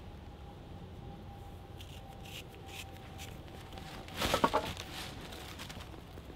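Hands rustling and handling things in dry fallen leaves, in scattered small sounds, with a short burst of crunching about four seconds in as the loudest moment.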